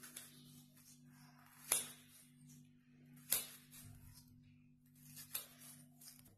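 Kitchen knife slicing a raw potato into thin strips on a stone countertop: soft cutting sounds with three sharper knife strikes about a second and a half apart, over a steady low hum.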